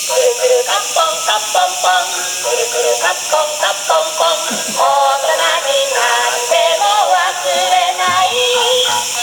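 Music with a melody sung or voiced in quick, changing notes, over a steady high hiss.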